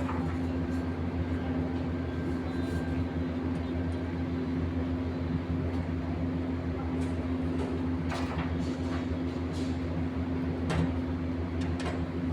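Steady drone of an engine or motor running, with a few sharp knocks near the end.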